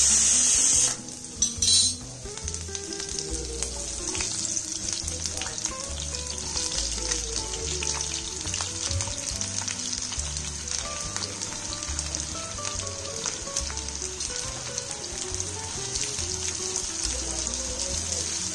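Raw sliced onions frying in hot oil in a nonstick pan, a steady sizzle, with a steel spatula stirring them. A couple of sharp knocks about a second and a half in come as the onions are tipped in from a cutting board. This is the start of sautéing the onions toward brown.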